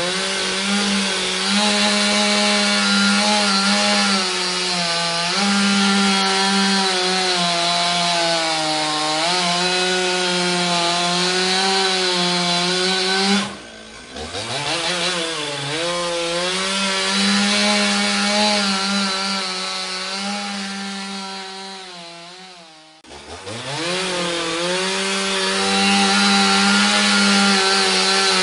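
Chainsaw running at high speed as it cuts wood, its pitch wavering under load. Twice, about 14 s in and again about 23 s in, it drops off and revs back up.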